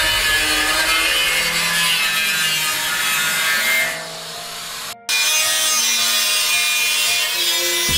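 Angle grinder with a thin cut-off disc cutting through the sheet-steel top of an oil drum, running steadily under load. About four seconds in the cutting drops off, there is a brief silence just before five seconds, and then the grinder is cutting again at full level.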